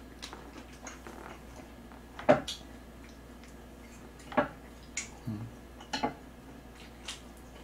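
Wooden chopsticks tapping and clicking against dishes as food is picked up: about half a dozen separate sharp taps, the loudest about two seconds in.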